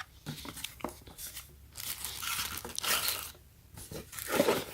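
Handling noise: a few light clicks, then rustling and crinkling as the power strip and its packaging are handled.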